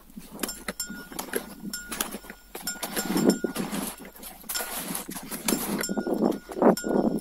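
Skis scraping and crunching over wind-crusted snow in short irregular strokes, with light metallic clinks of ski poles or bindings. Wind buffets the microphone in two louder gusts, about three seconds in and near the end.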